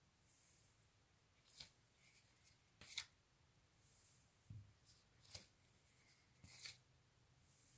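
Cardboard vinyl LP sleeves being flipped forward one by one, each giving a faint brief swish or slap, about five in all roughly a second apart, with a soft low thump about halfway through.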